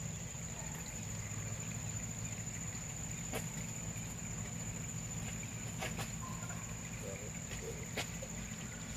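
Steady high-pitched insect drone, like crickets or cicadas, over a low steady hum, with a few short clicks.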